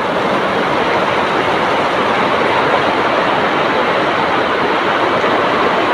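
Heavy rain pouring down in a steady, dense rush with no let-up.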